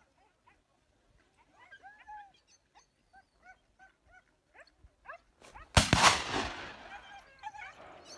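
Hunting dogs barking in short, repeated calls. About six seconds in, a single loud gunshot cracks and echoes away over about a second, and the barking carries on after it.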